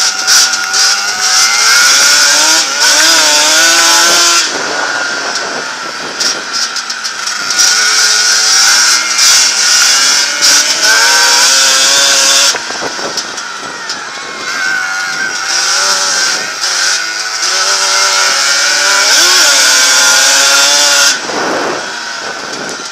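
Yamaha Banshee's two-stroke twin engine racing, revving up in long stretches and backing off between them in a repeating lap cycle, with heavy wind rush over the microphone at speed.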